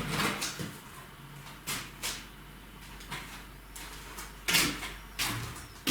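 Compressed-air blow gun giving a series of short hissing blasts, clearing aluminium chips from the freshly reamed camshaft bearing seats of a cylinder head.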